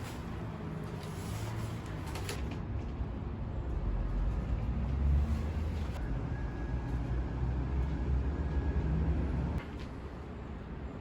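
A low, steady rumble that swells in the middle and cuts off suddenly about a second and a half before the end.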